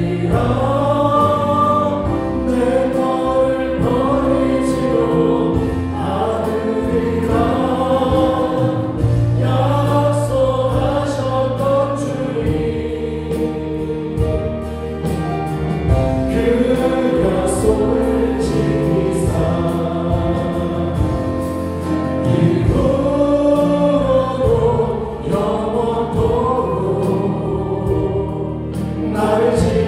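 Worship song sung by several voices over a live band of synthesizer keyboards, bass guitar and drums.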